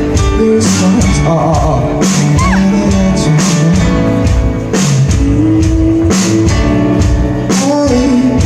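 Live rock band playing a song: a man's sung lead vocal over electric guitar, bass and a drum kit, with regular drum and cymbal hits.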